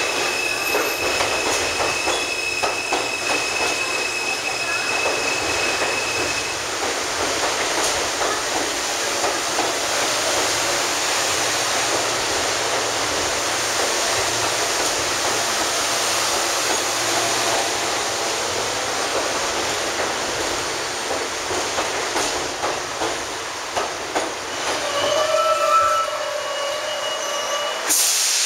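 R160 subway train rolling into an underground station, its wheels clattering over the rail joints with a steady high whine in the first few seconds. Near the end the brakes squeal in several tones as the train slows to a stop, followed by a short hiss.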